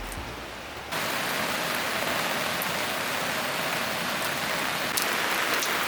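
Steady heavy rain falling and pattering on surfaces, starting abruptly about a second in, with a few sharper drip taps near the end.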